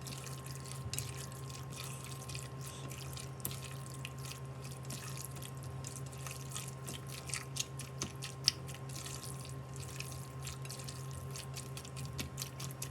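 Raw chicken pieces being mixed with their seasoning in a bowl: irregular small wet clicks and squelches, with one sharper click about eight seconds in, over a steady low hum.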